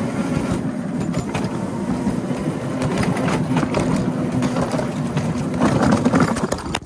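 Ride-on miniature railway train running along the track: a steady rumbling clatter of wheels on rail with a constant hum. It ends in a sharp knock right at the end as the end-of-train device derails.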